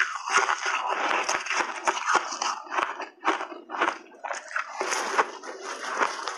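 Refrozen shaved ice crunching as it is squeezed in the hands and bitten in big mouthfuls: a dense run of crackly crunches.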